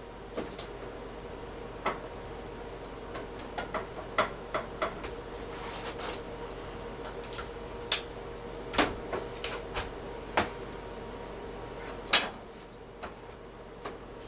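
Irregular clicks and knocks of a washer's plastic detergent drawer and its tape being handled, with a short scraping sound about six seconds in, over a faint steady hum.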